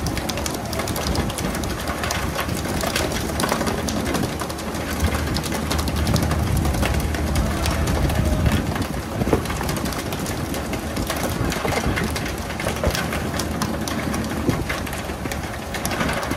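Pole-and-line tuna boat at work: a steady hiss of water spray over a low engine drone, with frequent sharp slaps and knocks as tuna and gear hit the deck.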